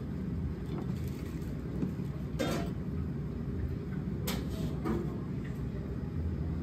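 Steady low rumble of restaurant kitchen background noise, with a few faint light clicks and taps.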